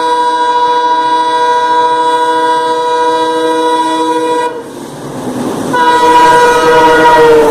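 An Alco WDG-3A diesel locomotive's horn sounding two blasts. The first is long and stops about four and a half seconds in. After a short gap filled with the noise of the running train, a second, shorter blast follows, and its pitch sags near the end as the locomotive passes.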